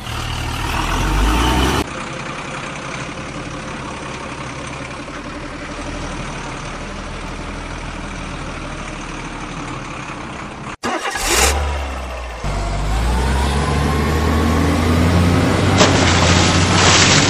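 Small yellow DC gear motor turning a toy auger as it bores into sand, running with a steady whir. It breaks off sharply a little over ten seconds in, then starts again with a rising whine and runs louder near the end.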